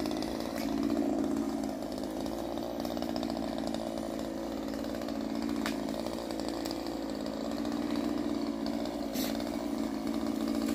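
Two-stroke chainsaw running up in a spruce as a climbing arborist cuts off its branches, the engine pitch wavering slightly up and down as it cuts. A few short sharp clicks come through over it.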